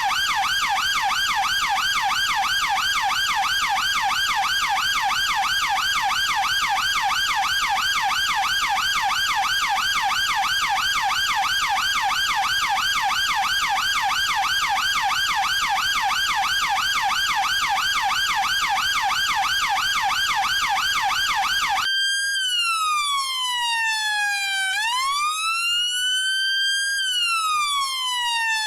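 British police car electronic siren on its fast yelp. After about 22 seconds it switches abruptly to the slow wail, which sweeps down and back up every four to five seconds.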